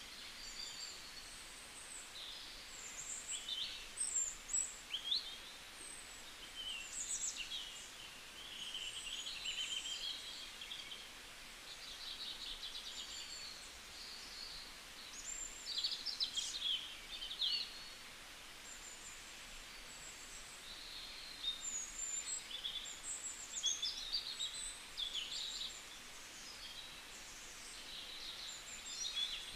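Birds chirping and calling: many short, quick chirps and whistles that come in clusters, over a faint steady hiss.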